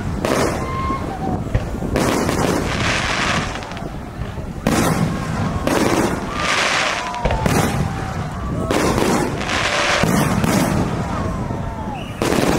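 Aerial firework shells bursting one after another, about one bang a second, each trailing off before the next.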